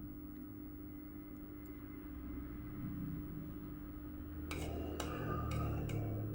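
Spoon clinking and scraping against a plate of fried rice, with about four sharp clinks in the last two seconds, over a steady low hum.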